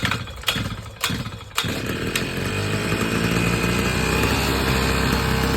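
Small two-stroke petrol engine of a 52cc gas-powered breaker hammer being pull-started: a few sharp clicks, then it catches about a second and a half in and runs steadily.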